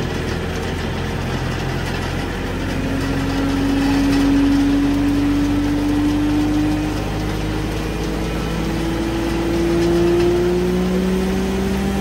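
Tractor engine running and driving a hammer mill feed mixer through its PTO shaft. A whine climbs slowly in pitch as the mill spins up, and a second, lower whine rises near the end.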